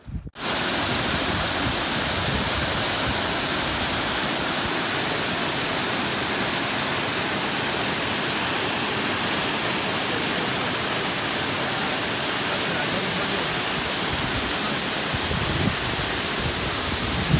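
Waterfall: a loud, steady rush of falling water that cuts in abruptly and cuts off just as abruptly.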